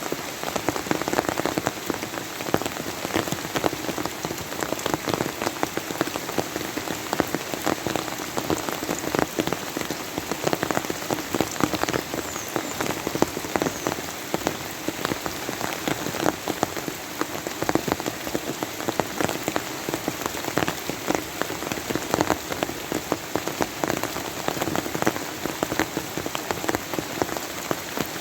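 Steady, heavy rain falling, with many separate drops striking a surface close by.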